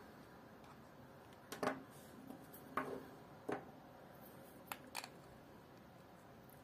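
Plastic frame and metal spool shaft of a baitcasting reel being handled: a few scattered light clicks and taps, about six over a few seconds, from the loose shaft and parts knocking in the frame.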